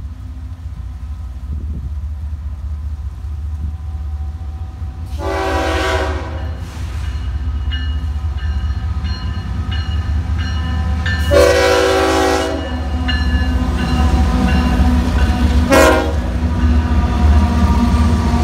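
Florida East Coast Railway GE ES44C4 diesel locomotives approaching and passing, their low rumble growing steadily louder, while the lead locomotive's horn sounds in long blasts about five and eleven seconds in and a short one near the end.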